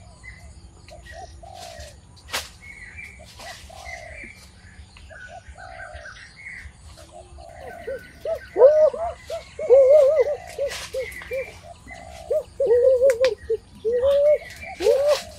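Forest birds calling: many short chirps and whistled notes. About halfway through, a quick run of low, arched calls sets in and becomes the loudest sound.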